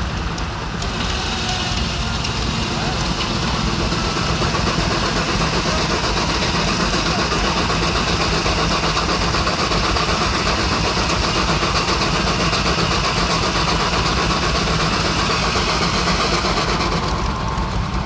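Steam-engine-driven sawmill cutting a log. The cutting noise comes in about a second in, holds steadily and drops away near the end as the cut finishes, over the steady low running of the engine and mill.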